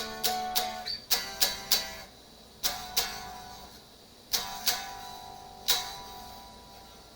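Strat-style HSS electric guitar played with a pick: a quick run of picked notes and chords in the first two seconds, then a few separately struck chords left to ring out.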